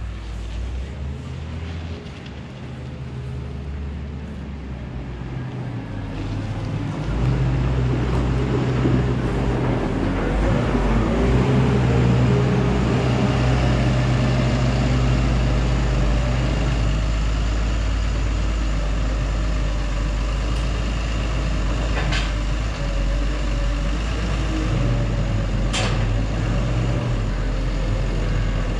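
New Holland W170D wheel loader's diesel engine running, getting louder about seven seconds in. There are two short sharp knocks in the second half.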